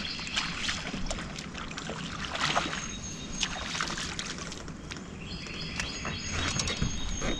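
A hooked crappie splashing and thrashing at the surface in a run of short, sharp splashes as it is reeled toward the boat. High, thin calls sound twice over the splashing.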